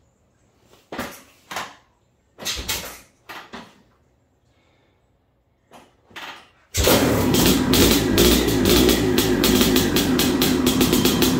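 Maico 700's big two-stroke single being kick-started: a few short bursts as it is kicked over, then about seven seconds in it fires and keeps running loudly with a fast, even beat. The exhaust has just been repaired.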